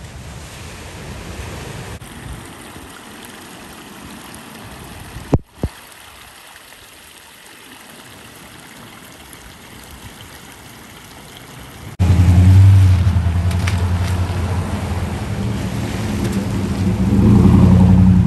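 Surf washing onto a beach with wind on the microphone, broken by two sharp knocks about five seconds in. About twelve seconds in it cuts to traffic on a wet street: car and pickup engines running low and steady as they pass, the loudest part.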